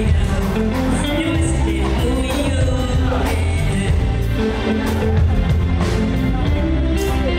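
Live band music with a drum kit keeping a steady beat over a strong bass line, and a voice singing over it.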